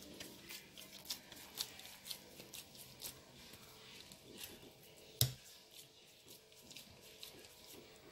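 Hands squeezing and pulling very wet, sticky flour-and-water dough, making short sticky clicks and squelches, with one louder thump about five seconds in.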